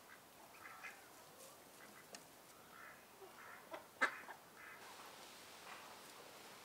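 Faint, short bird calls at irregular intervals, with a few sharp clicks; the loudest is a click about four seconds in.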